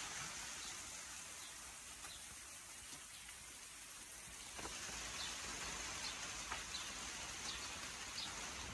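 Light rain falling: a faint, steady hiss with scattered drops tapping.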